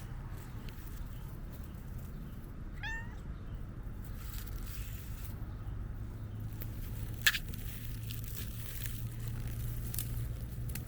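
A domestic cat gives one short, high meow about three seconds in. A sharp click a little past halfway is the loudest sound, over a steady low hum.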